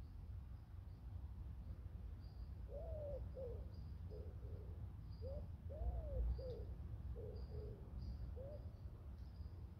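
A pigeon cooing: two phrases of soft hoots, each rising and falling, with a longer hoot near the start of each phrase. Faint high chirps of small birds and a low background rumble sit under it.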